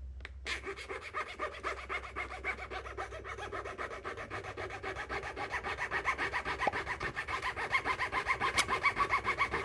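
Steel hand file rasping back and forth across the edge of a carbon fibre frame plate in fast, even strokes, growing louder toward the end. The file is being used to take off the plate's battery-strap lugs and is making little headway.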